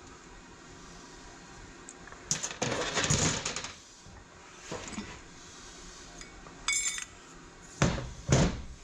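Metal parts of a Turbo 350 automatic transmission being handled during its teardown: a clatter of clinking metal a couple of seconds in, a short ringing metallic chink about seven seconds in, and two knocks near the end.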